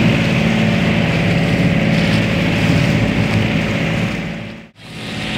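Outrigger boat's engine running steadily under way, with wind and water rushing past the hull. The sound fades out briefly near the end and comes back.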